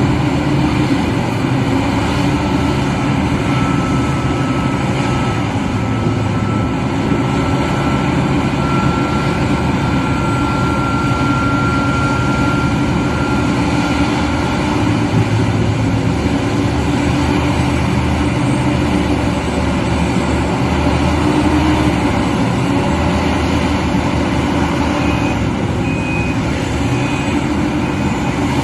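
Heavy mining machinery running steadily: the big diesel engine of a Liebherr R 996 B mining excavator working under load, rising and easing, with a faint high whine in the first half. A few short warning beeps sound near the end.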